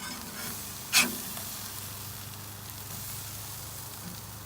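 Red snapper fillets sizzling on a hot grill, a steady hiss, with one sharp clack about a second in.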